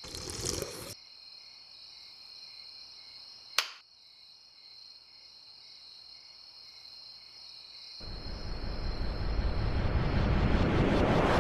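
Crickets chirping steadily, with a short burst of noise at the start and a single sharp click about three and a half seconds in. From about eight seconds a broad rushing noise swells up and covers the chirping.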